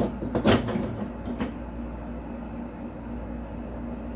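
A few light knocks and clatters, the loudest about half a second in, as a wall-mounted aluminum towel rack and a level are shifted while it is being leveled. A steady low hum carries on underneath.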